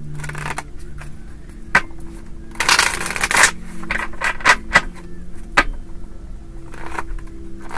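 A deck of tarot cards being shuffled by hand: scattered sharp snapping clicks of cards, with a longer riffling rush about three seconds in.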